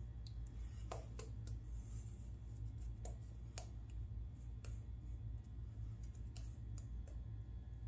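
Shaving brush working shaving-cream lather over a day-and-a-half stubble: faint, irregular soft clicks and crackles over a low steady hum.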